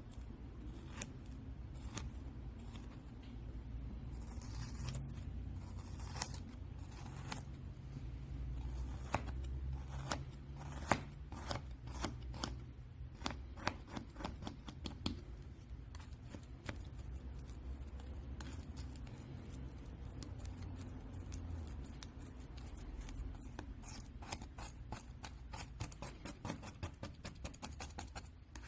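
Scissors cutting repeatedly, a long run of crisp snips and crackles that come sparse at first and much thicker from about a third of the way in.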